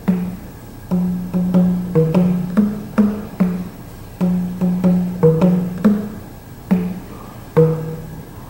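Background music: short plucked, percussive notes in a steady repeating rhythm.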